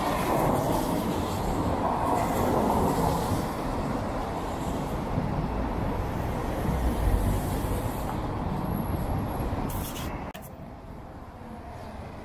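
A train running along an elevated viaduct, mixed with car tyres swishing on the rain-wet road. The noise drops away abruptly near the end, just after a brief sharp click.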